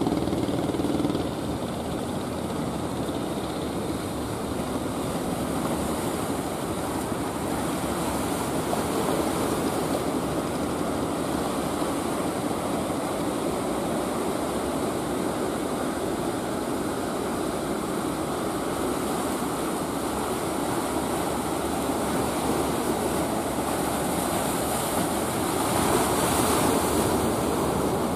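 Surf and waves, a steady rushing noise, with a louder wave breaking near the end. A fishing boat's engine hum fades out about a second in.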